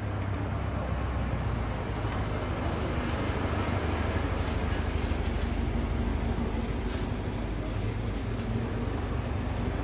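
Steady low mechanical hum and rumble, with a few faint clicks in the middle of the stretch.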